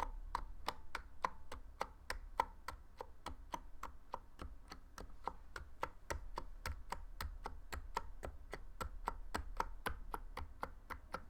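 Niz Plum 68 electro-capacitive keyboard's keys struck one at a time at a steady, even pace, about four clicks a second. The keys have stock switches.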